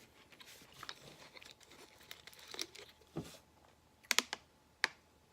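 Close-up eating sounds: soft chewing, crinkling and small mouth and utensil clicks, with a few sharper clicks about four seconds in.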